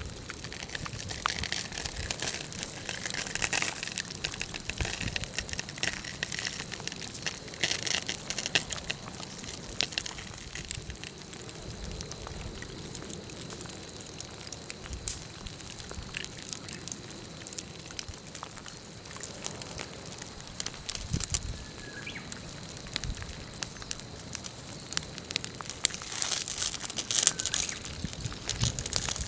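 Pahoehoe lava crackling and ticking as its cooling crust cracks, with brush it has set alight crackling as it burns. The sharp clicks sit over a steady hiss and come in louder spells about two seconds in, around eight seconds, and again near the end.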